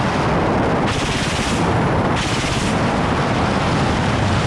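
Ka-52 attack helicopter's side-mounted 30 mm cannon firing in bursts, two of them about a second in and just past two seconds, over loud steady rotor and wind noise.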